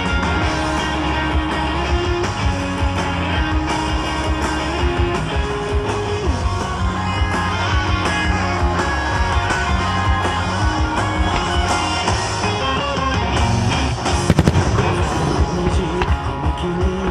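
Starmine fireworks display set to music: guitar-led recorded music plays throughout, with shell bursts popping through it and a quick cluster of bangs about fourteen seconds in.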